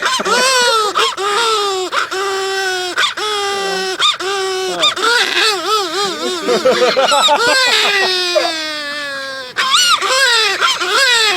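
A person imitating a baby crying: a string of high, wavering wails, one after another, with a short break about nine and a half seconds in.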